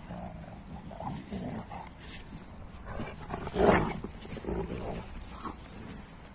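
Two Newfoundland dogs play-fighting, with short dog vocalisations and scuffling; the loudest outburst comes about three and a half seconds in.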